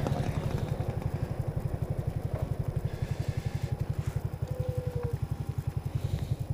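Small single-cylinder four-stroke engine of a Honda C50 step-through motorbike running at low, steady revs: an even, rapid putter with no change in pitch.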